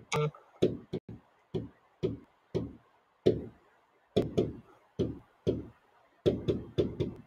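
Marker strokes on a whiteboard as numbers are written: a run of short, irregular knocks and taps, about two a second, with a short pause midway.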